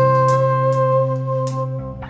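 Background instrumental music: sustained held notes with a few plucked accents, fading slightly near the end.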